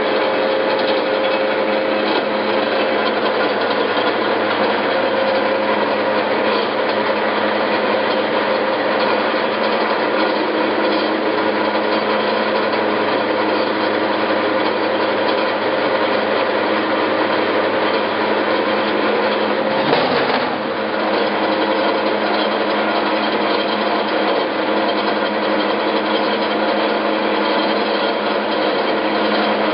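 18-inch Marvel Series 8 vertical bandsaw running steadily, giving a continuous mechanical noise with a few held tones. There is one short knock about twenty seconds in.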